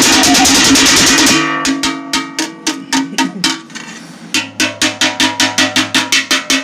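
Music: a loud, dense track that cuts off about a second and a half in, giving way to a sparser beat of short notes and hits. The beat thins out briefly around the middle, then picks up again at an even, faster pulse of about four hits a second.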